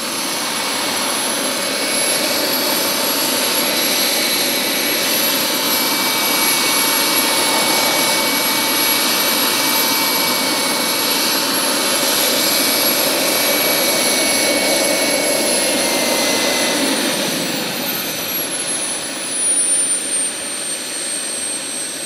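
Vario XLC model helicopter's kerosene-burning model turbine whining steadily together with rotor noise as it hovers. From about three-quarters of the way through, the whine drops steadily in pitch as the turbine winds down after the helicopter settles on the ground.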